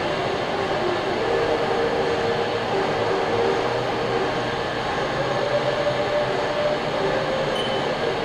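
Steady machine hum from a Haas TM-1 CNC toolroom mill standing powered up while its control boots. Near the end, a short high beep as a key on the control pendant is pressed.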